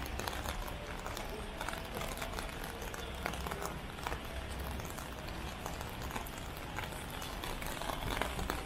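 Rain on a busy city street: a steady hiss with many small drop ticks scattered through it, over a low street rumble.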